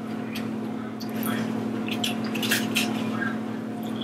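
Close-up eating sounds: wet chewing and lip smacking, with a cluster of short sharp clicks from about a second to three seconds in, over a steady low hum.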